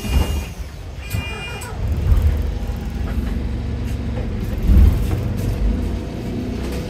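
Double-deck bus heard from inside the cabin while riding: steady low engine and running rumble that swells twice, with a sudden loud noise at the start and short high beeps about a second in.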